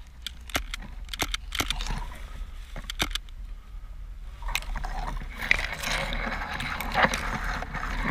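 Airsoft guns firing single shots, a handful of sharp cracks at irregular intervals over the first three seconds. From about halfway through come rustling and scuffing noises of movement.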